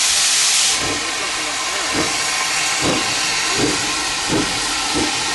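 Great Western steam railmotor moving off: a strong hiss of steam, then slow exhaust chuffs about once a second, coming a little quicker as it gathers speed.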